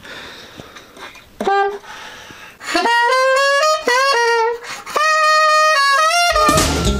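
Alto saxophone playing a slow phrase of held notes, some sliding between pitches, starting about a second and a half in. Near the end a full backing track with bass comes in under it.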